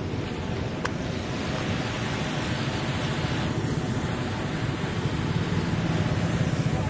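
Steady rushing of turbulent floodwater churning below a bridge, with wind rumbling on the microphone.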